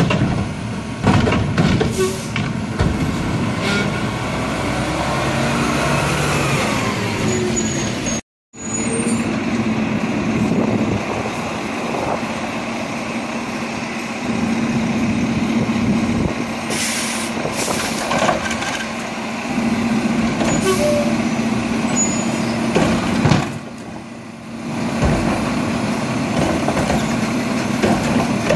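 Mack LEU garbage truck's diesel engine running at a raised idle while the hydraulic arm of its McNeilus Pacific Curotto Can lifts and tips a cart into the can. A few short air hisses come in the second half.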